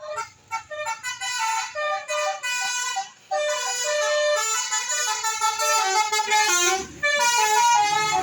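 Bus telolet horn, a multi-tone musical air horn, playing a tune: quick, separate short notes at first, then longer held notes from about three seconds in.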